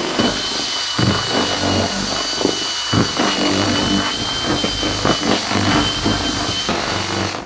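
Power drill running steadily with a mixing paddle, churning and splashing wort in a plastic fermenter to aerate it before the yeast is pitched, the motor giving a steady high whine. The drill stops near the end.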